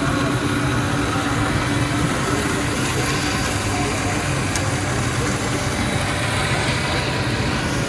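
A steady engine-like drone with a low hum under general background noise, and one brief click a little past halfway.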